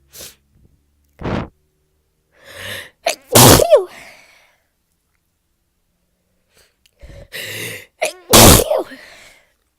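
Two sneezes from a person congested with a cold or flu, one about three seconds in and one about eight seconds in. Each has a breathy intake building up before it and a short falling cry after the burst.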